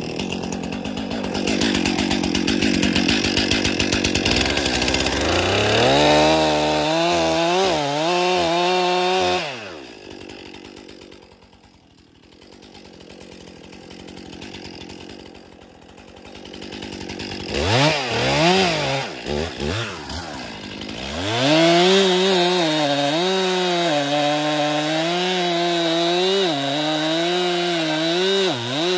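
Chainsaw felling a spruce tree: the saw runs at high revs and its pitch wavers as the chain bites into the trunk. About ten seconds in it falls away to a much lower level for several seconds, then revs back up and keeps cutting.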